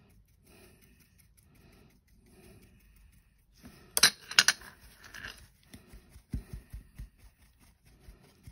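Paintbrush clinking against the wells of a metal paint palette: a quick cluster of sharp clinks about four seconds in. Around it, faint brushing and handling sounds, with a few dull thumps shortly after.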